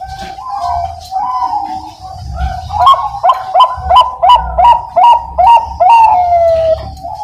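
Bangkok-strain zebra dove (perkutut) cooing in full song: a wavering opening coo, then a run of about eight short, clipped coos at roughly three a second, closing with a longer note that slides down in pitch.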